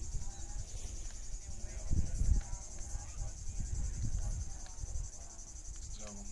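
Steady high-pitched shrilling of summer insects with a fast, even pulse, over an uneven low rumble that is loudest about two seconds in. Faint voices of a crowd far off.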